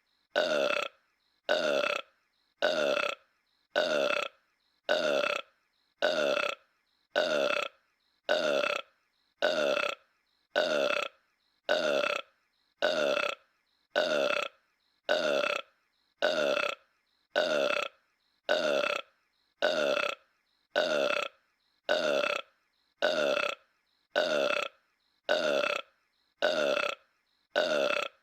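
A cartoon character's burp, the same short burp looped over and over about once a second with silence between. Each burp drops slightly in pitch.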